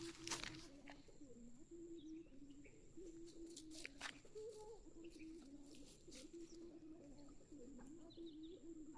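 Near silence: faint outdoor ambience with faint bird calls, repeated low notes stepping between two pitches, and a few faint clicks.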